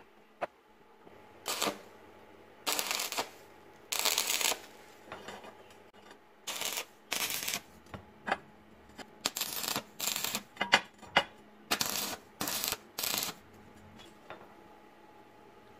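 Stick-welding arc crackling in about a dozen short bursts, each under a second: a series of tack welds joining a steel flange to a metal tube.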